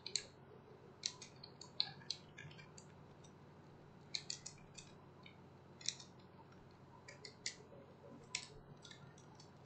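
Faint computer keyboard typing: keys clicking in short, irregular bursts as a word is typed and letters deleted.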